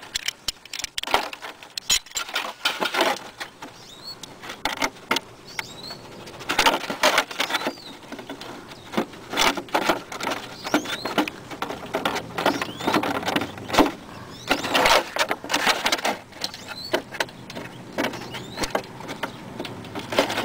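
Irregular clicks, taps and rustles of a hand working an Allen wrench in a scooter's crankcase drain plug to loosen it. Short chirps, like a small bird's, come now and then in the background.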